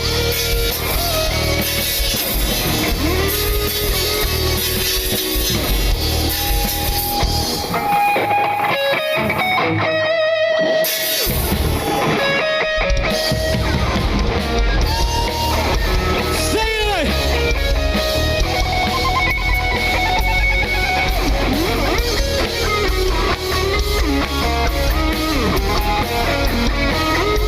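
Live rock band playing an instrumental section: a guitar lead with bent, wavering notes over bass guitar and drum kit. The bass and drums drop out briefly about ten seconds in, then come back in.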